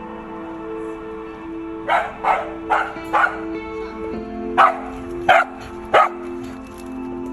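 A dog barking: seven short barks, four in quick succession about two seconds in, then three more spaced a little wider apart, over background music with slow held notes.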